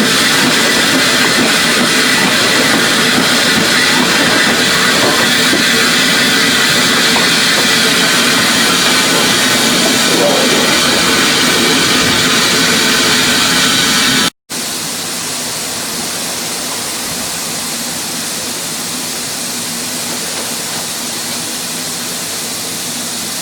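Steam locomotive letting off steam: a loud, steady hiss with faint ringing tones in it. It cuts off abruptly about fourteen seconds in and then resumes more quietly.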